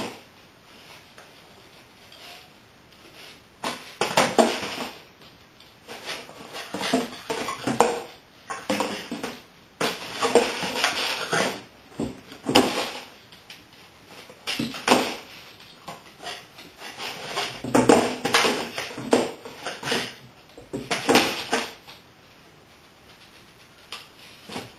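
Cardboard box being pushed, knocked and scraped across a tile floor by a dog, in irregular bursts every second or two with a few sharp knocks among them.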